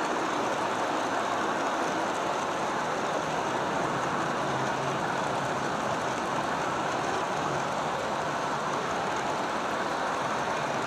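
Steady, even rolling noise of a long string of G-scale model freight cars running over garden-railway track.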